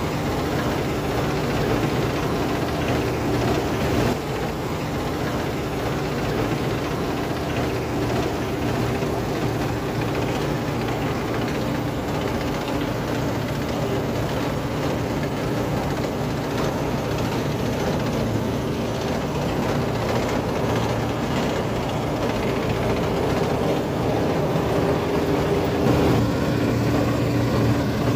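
Claas Dominator 48S combine harvester running steadily while harvesting wheat: its engine and threshing machinery. A new, higher tone comes in and the sound gets a little louder near the end.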